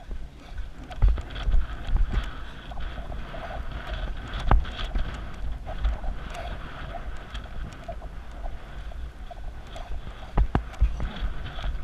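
Wind rushing over a rider-mounted camera microphone, with irregular dull thuds of a ridden horse's hooves on the soft arena footing.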